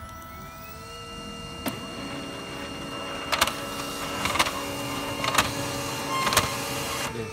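Samsung SCX-4321 laser printer running a print job: its motor winds up, then runs steadily with a sharp clack about once a second as sheets are pulled through, and stops near the end. It is feeding several sheets together, the paper-jam and multi-sheet pick fault under repair.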